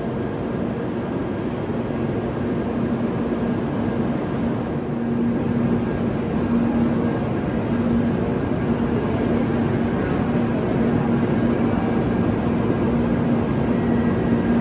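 Shinkansen train at the platform: a steady rumble with a constant low hum, growing slightly louder about five seconds in.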